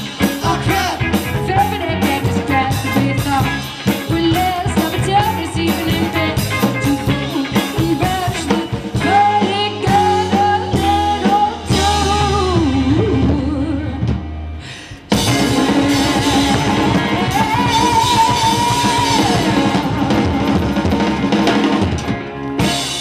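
Live rock band playing: drum kit, electric guitar and singing. The music dips briefly about 15 seconds in, then comes back full, and the song stops sharply just before the end.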